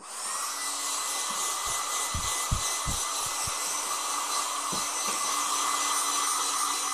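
Small hand-held hair dryer switching on and blowing steadily: a rushing air noise with a thin high fan whine, and a few low thumps about two to three seconds in. Its user thinks the dryer is about to blow up, with a red piece showing inside it and a burning smell.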